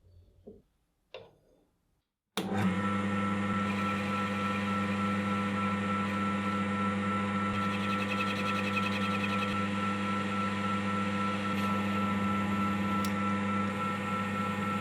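An electric workshop machine's motor is switched on about two seconds in and runs steadily with a constant hum.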